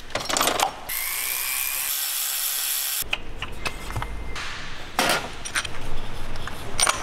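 Ratchet wrench clicking as a diesel injector hold-down bolt is undone, with a steady rasping stretch of about two seconds that stops abruptly, then scattered metal tool clicks and clinks. The injectors are coming out so water can be blown from the cylinders of a flooded engine.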